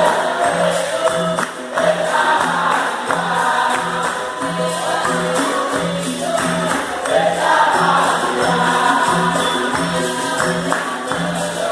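Capoeira roda music: voices singing with a group answering, over a steady percussion beat with jingling tambourine-like pandeiro and the berimbau.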